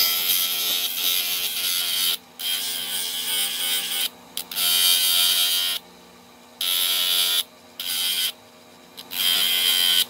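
Workshop power tool with its motor humming steadily, broken by five or six loud hissing bursts about a second long that start and stop sharply.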